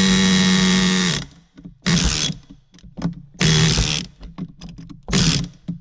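Pneumatic air chisel hammering in four bursts against the 6.7 Cummins fan clutch nut to shock it loose. The first burst is the longest, about a second, and the later ones are shorter, with a few light clicks between them.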